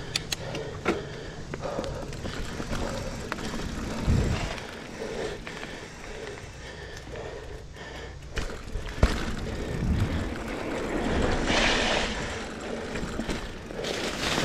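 GT Aggressor Pro mountain bike ridden along a dirt singletrack: rushing tyre noise on the trail with many clicks and rattles from the chain and frame, and a couple of low rumbles about four and ten seconds in.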